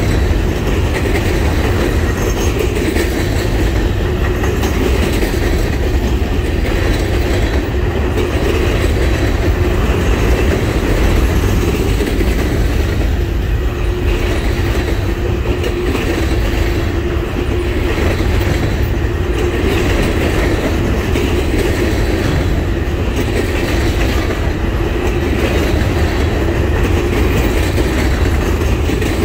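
Freight cars loaded with trash containers rolling steadily past close by: a continuous rumble of steel wheels on rail with a clickety-clack as the wheels cross rail joints.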